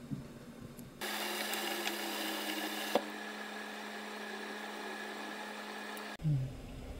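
Saucepan of water boiling hard on a gas burner, under a steady mechanical hum and hiss. The sound starts abruptly about a second in and cuts off about six seconds in, with a single click near the middle.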